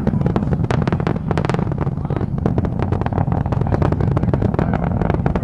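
Space shuttle Endeavour's rockets heard from afar as it climbs after liftoff: a deep continuous rumble with dense, irregular crackling.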